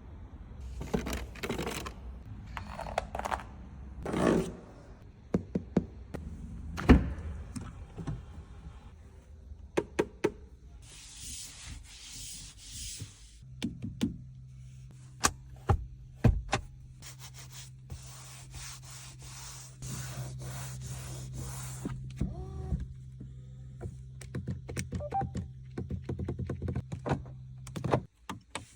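Mercedes-AMG C63 S E Performance's doors, switches and electric motors: a series of thunks and clicks with short whirring runs of power windows or similar motors. A steady low hum starts about halfway through and stops just before the end.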